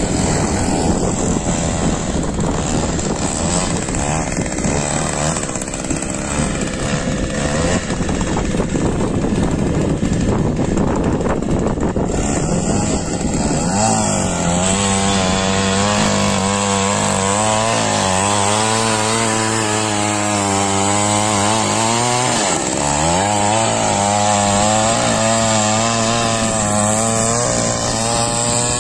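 Small petrol engine of a power weeder running under load as its rotary tines churn the soil. About halfway through the sound settles into a steadier engine note, which sags briefly in pitch about three-quarters of the way in and picks back up.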